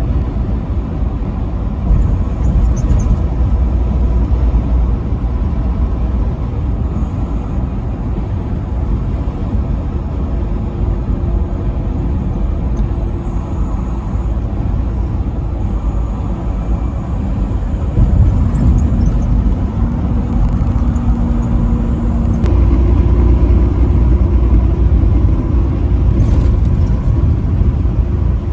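Steady low rumble of a vehicle travelling at highway speed on the interstate, with engine and tyre noise. There is no horn blast.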